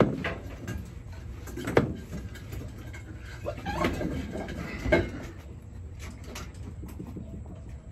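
Handling noises while a puppy is hand-fed from a plastic tub of soaked dog food: a sharp knock about two seconds in and another about five seconds in, with softer scraping and rustling between them, over a steady low hum.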